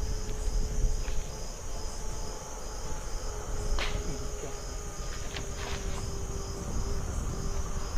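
Night insect chorus: a steady high-pitched cricket trill with a regular chirp pulsing about three times a second. There are a few faint clicks about four and five and a half seconds in.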